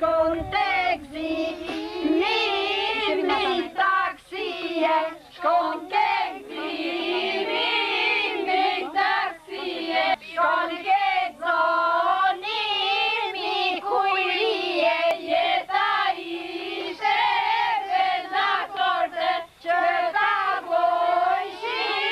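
A group of women and girls singing a traditional Albanian wedding folk song together in chorus, with no strong instrumental accompaniment.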